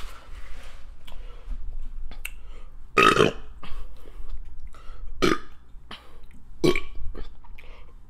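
A woman burping loudly three times, about a second and a half apart, the first burp the longest and loudest, with small mouth clicks from eating in between.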